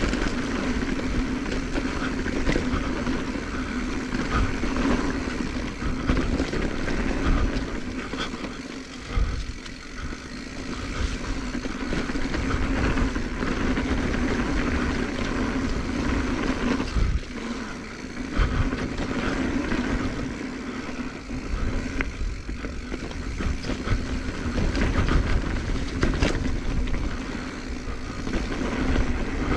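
Giant Trance X 29 mountain bike riding down a dirt trail: a continuous rumble of tyres and wind with a steady hum underneath, broken by frequent sharp knocks and rattles as the bike goes over bumps.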